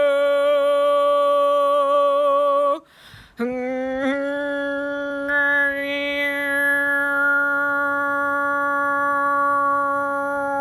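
A woman's voice toning one long sustained note with a slight waver. Near three seconds in it breaks off for a quick breath, then comes back in slightly low and slides up into the same held note.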